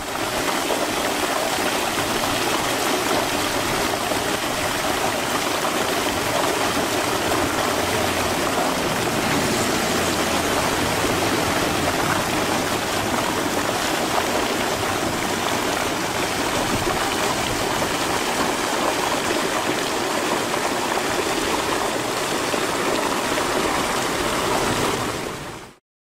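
Heavy flow of water gushing from a submersible pump's discharge pipe into a concrete channel. It is a steady rushing that cuts off suddenly near the end.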